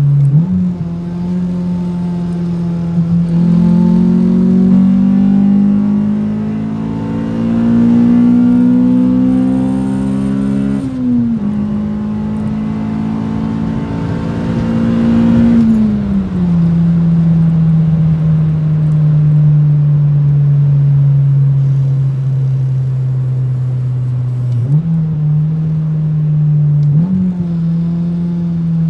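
Honda B16A2 1.6-litre DOHC VTEC four-cylinder, with a Spec-D Tuning cat-back exhaust, heard from inside the 1999 Civic Si's cabin on the highway. The engine note climbs steadily, dips slightly about eleven seconds in, climbs again, then drops at about sixteen seconds to a steady lower cruising note, with two brief rises and falls near the end.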